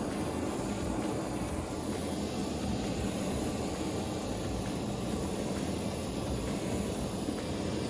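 Gas torch flame burning with a steady, even rushing noise while it heats a dented steel two-stroke expansion chamber, softening the metal so air pressure can push the ding out.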